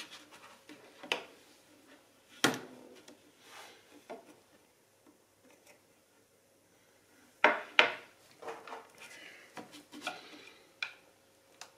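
Hard knocks, taps and small clicks of a partly disassembled smartphone being handled, turned over and set down on a tabletop: one sharp knock about two and a half seconds in, two loud knocks close together about halfway through, and lighter clicks and scrapes between.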